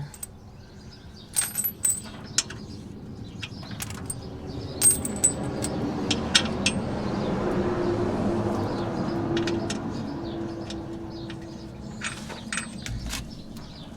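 Sharp metallic clinks and taps of hand tools and hardware against metal during a shock-absorber installation, with a broad rush that swells up in the middle and fades away.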